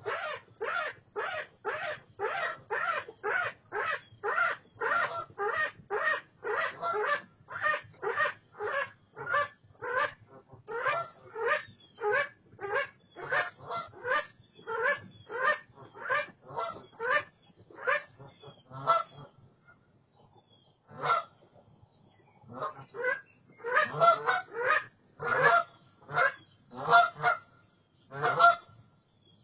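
A swan honking over and over, short harsh calls at about two a second, breaking off briefly about two-thirds of the way through, then resuming in uneven bursts.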